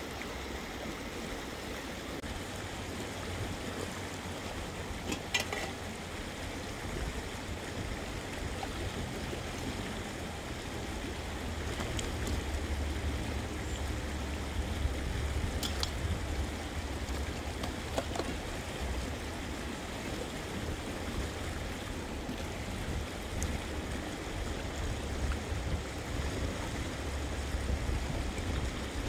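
Steady rushing of running water, like a stream, with wind rumbling on the microphone and a few faint ticks.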